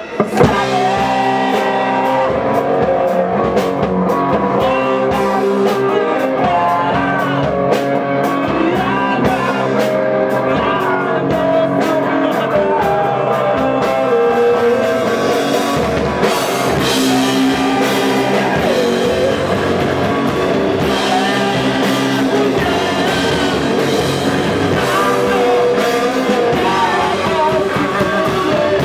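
A live rock band playing: electric guitar, bass guitar and drum kit, with a singer's voice over them.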